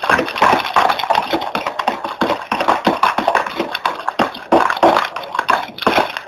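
Homemade slime of glue, boric acid water and detergent being stirred hard in a plastic tub: a dense run of irregular squelching clicks.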